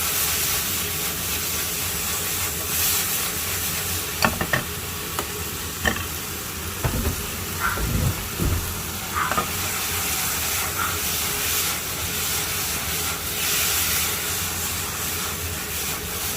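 Pork belly with onion and green onion sizzling as it fries in a soy-sauce and sugar seasoning in a pan, with a utensil stirring it and clicking against the pan a few times.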